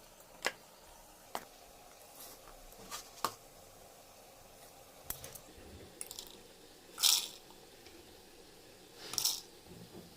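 Scattered light clicks and knocks of kitchen handling, with two short, louder rustling, splashing noises about seven and nine seconds in.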